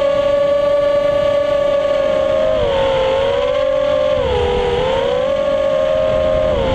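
FPV quadcopter's brushless motors running on a 3S LiPo, heard from the onboard camera as a steady high whine. The pitch dips and recovers about three and four and a half seconds in, and again at the end, as the throttle is eased.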